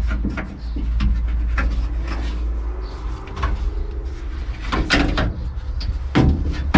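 Scattered clicks, knocks and handling noises from work on a car door, such as pulling at its old rubber seals and fittings, over a steady low rumble. The louder knocks come about five seconds in and again just after six seconds.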